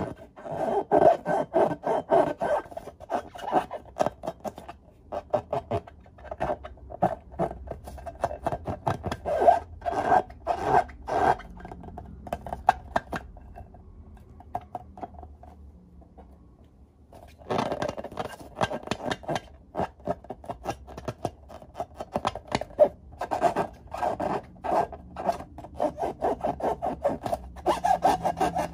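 Hands rubbing and squeezing filled rubber balloons: a quick run of short rubbing strokes, with a quieter stretch of a few seconds about halfway through.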